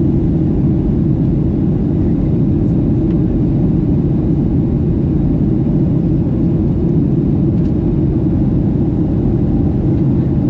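Steady cabin drone of a Boeing 737-800 in flight: the CFM56 jet engines and the airflow over the fuselage, as heard from a seat behind the wing, an even low rumble with no change.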